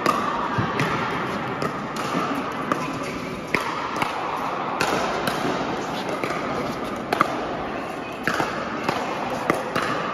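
Pickleball paddles hitting a plastic ball during a doubles rally, sharp pops at irregular intervals, in a large indoor hall with a murmur of voices behind.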